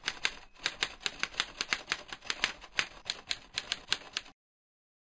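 Typing sound effect: a rapid, even run of keystroke clicks, about six a second, that stops abruptly near the end.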